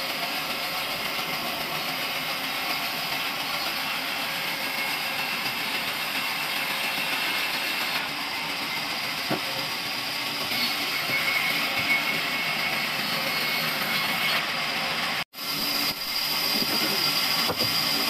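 Large vertical band sawmill running and sawing a log into slats: a steady mechanical whir with a thin high whine, getting louder for a couple of seconds past the middle. The sound drops out for an instant about 15 seconds in, then resumes.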